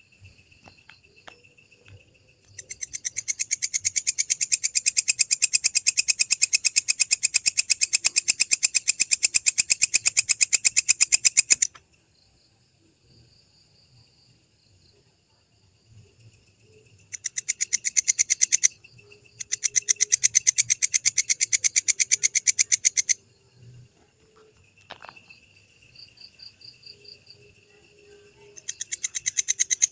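Walang kecek katydid stridulating: fast, even, high-pitched rasping pulses in bursts. A long burst of about nine seconds comes near the start, then two shorter ones in the middle, and another begins near the end. Between the bursts a softer steady insect trill carries on.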